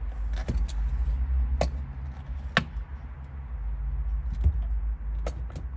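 Handling noise from two Skar Audio 10-inch shallow-mount subwoofers being shifted and touched on a trunk's sound-deadening mat: a few short, sharp knocks and taps over a steady low rumble.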